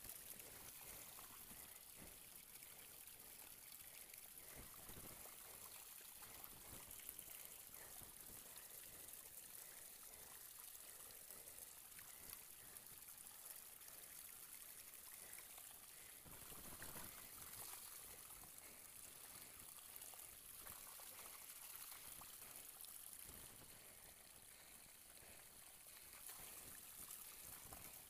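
Faint running water, a steady pouring trickle that swells briefly about two-thirds of the way through.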